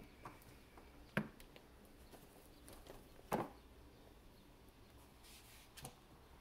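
Kittens playing with a toy dangled on a string: scattered soft taps and a few sharper knocks, the loudest about a second in and just past three seconds in, over faint room tone.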